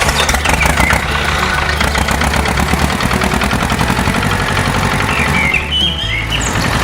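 A tractor-type engine running steadily at idle with a fast, even chugging. Near the end there is a brief high squeak.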